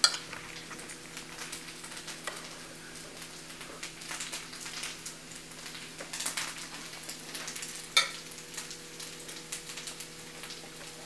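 Faint crackling sizzle of freshly cooked, still-hot fried rice, over a steady low hum, with a few light clicks, the sharpest about eight seconds in.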